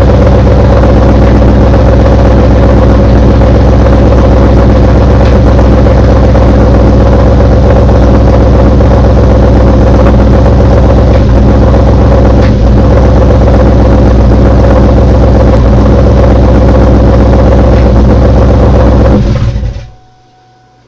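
Supercharged car engine, freshly fitted with stage 2 blower cams, running with a loud knocking noise, then switched off about 19 seconds in.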